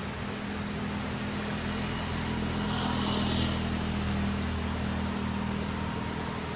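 A motor vehicle passing on the road. Its engine hum and tyre hiss build to a peak about three seconds in, then fade, over the steady rush of a river.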